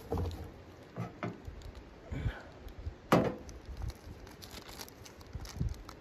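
Irregular knocks and rustles of camp gear being handled around a steel wood stove, with a ceramic mug set down on the metal stove top beside the kettle. The loudest clunk comes about three seconds in.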